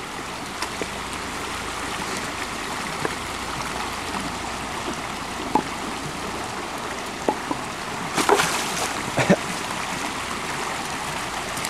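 Shallow creek running steadily over rocks, with a few short knocks and clatters, the loudest around eight and nine seconds in, as flat stones are set down in the water to make a stepping-stone path.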